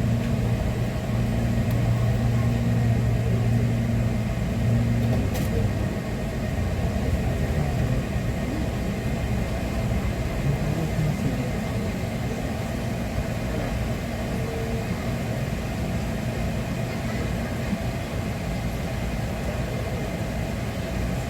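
Hankyu electric train car running slowly, heard from inside the cabin as a steady low rumble. A steady low hum stops about five seconds in.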